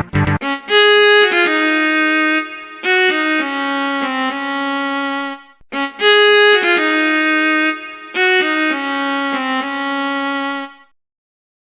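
Background music: a melody of held, pitched notes, the same phrase played twice, stopping about a second before the end.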